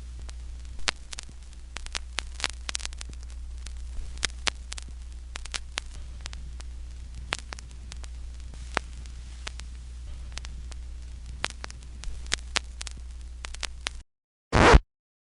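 Vinyl record surface noise: a steady low hum with scattered crackles and pops, which cuts off suddenly near the end. A single short record scratch follows.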